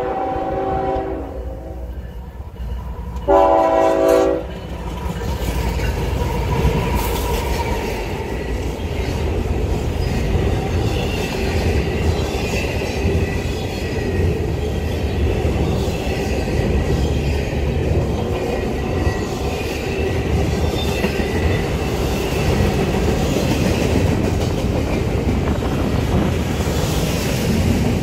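Locomotive air horn sounding a chord that ends about a second in, then a short, louder blast about three seconds in. After that comes the steady noise of the train rolling past.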